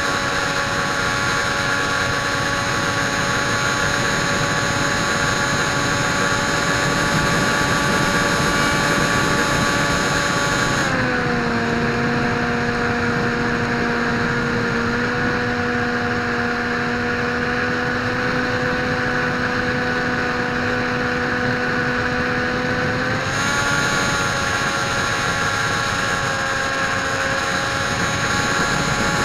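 Dynam Hawk Sky RC airplane's electric motor and propeller whining steadily in flight. About eleven seconds in the pitch drops as the throttle is eased back, stays lower for about twelve seconds, then rises again as throttle is added.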